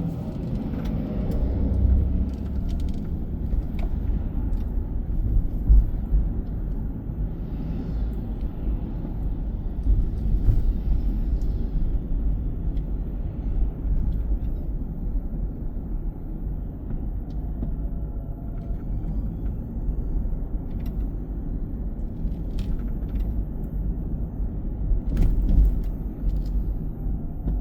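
Car driving on city roads: a steady low rumble of engine and tyres, with a few brief swells of hiss.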